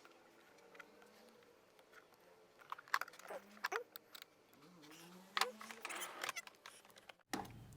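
Small plastic and metal parts being handled and fitted: a run of light clicks and rattles that grows busier about halfway through, with a faint low voice-like sound in the background.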